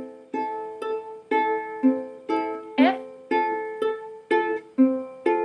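Ukulele fingerpicked slowly in an alternating pattern. A thumb pluck on the 3rd or 4th string is followed by the bottom two strings plucked together, about two plucks a second, each note left to ring.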